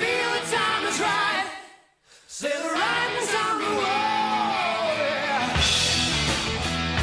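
Background song with a singing voice. The music drops out briefly about two seconds in, the singing returns, and a steady drum beat with bass comes in near the end.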